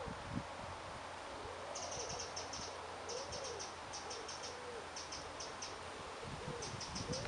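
Woodland birds calling: a low rising-and-falling cooing call repeated every second or so, joined about two seconds in by bursts of fast, high-pitched ticking notes.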